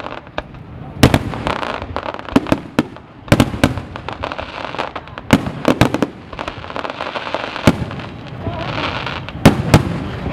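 Aerial fireworks shells bursting overhead in a string of sharp bangs, some in quick pairs, with a spell of crackling stars a little before the end.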